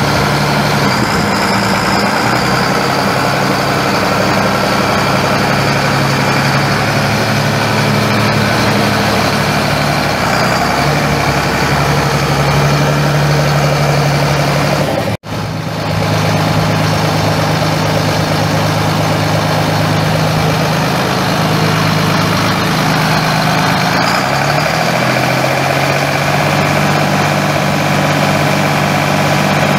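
1982 Allis-Chalmers 8050 tractor's six-cylinder diesel engine idling steadily. The sound drops out for an instant about halfway through.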